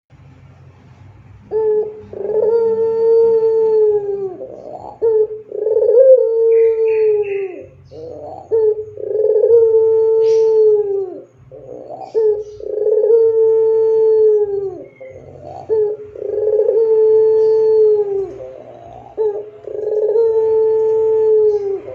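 Barbary dove of the long-cooing 'puter pelung' type giving drawn-out coos, each about two seconds long and dropping in pitch at its end, repeated roughly every three to four seconds with short notes between them.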